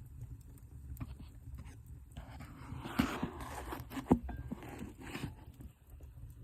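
Wood fire burning in a fireplace: irregular crackles and sharp pops over a low steady rumble of the flames, with the loudest pops about three and four seconds in and a short hiss around the first of them.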